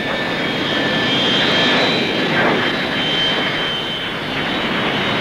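Four Rolls-Royce Avon jet engines of a de Havilland Comet 4B on its landing roll, a steady jet noise with a high whine, swelling about a second in and easing off near the end as reverse thrust slows the airliner.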